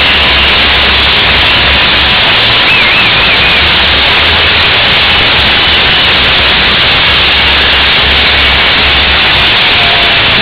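Pyrotechnic fountains spraying sparks with a loud, steady hissing roar.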